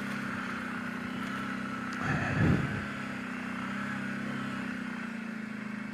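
Kawasaki Brute Force 750 ATV's V-twin engine running steadily at low speed on the trail. About two seconds in, a short sound dips and rises in pitch.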